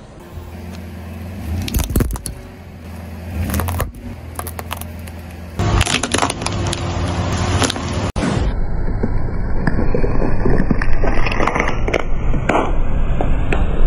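A car tyre rolling slowly over small objects on asphalt, crushing a snack packet and a small plastic toy with crackles, snaps and crunches over the grind of the tyre on grit. The sound changes abruptly about five and a half and eight seconds in.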